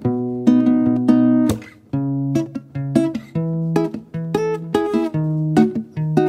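Acoustic guitar strumming chords in a steady rhythm: the instrumental break of a folk-style background song, with no singing.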